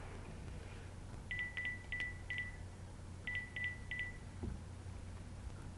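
Cell phone keypad beeping as a number is dialed: four short beeps, a pause of about a second, then three more, all at the same pitch.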